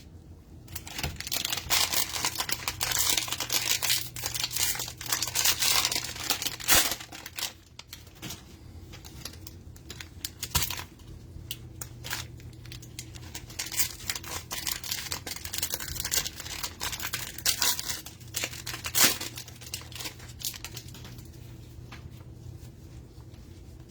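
Cellophane wrapper of a trading-card cello pack being torn open and crinkled, with sharp snaps of the plastic now and then. The crinkling is busiest in the first few seconds.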